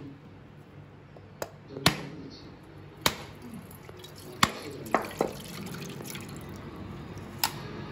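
Sharp, hard knocks on a coconut, about seven spread irregularly, as it is cracked open for grating.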